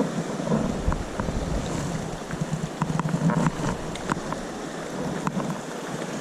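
River water rushing steadily, with wind buffeting the microphone and a scatter of faint ticks.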